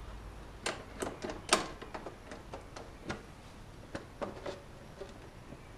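Hand socket ratchet clicking in short, irregular strokes while a bolt is turned in to fasten a motorcycle exhaust hanger bracket.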